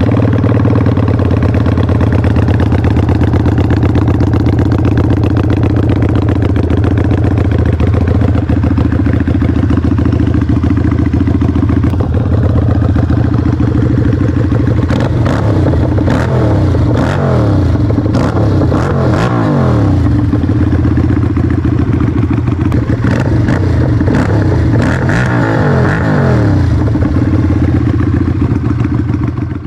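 Keeway V302C's V-twin engine running through an aftermarket staggered dual exhaust with its dB-killer baffles removed: a loud, steady idle, then a series of quick throttle blips about halfway through and again near the end, the revs falling back to idle after each.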